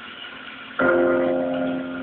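Dramatic background music: a sustained chord strikes in suddenly about a second in and is held, easing off a little.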